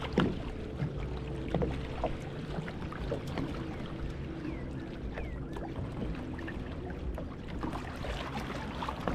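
Kayak paddle strokes splashing in lake water, with small waves lapping, and a scatter of short splashes over a steady wash of water.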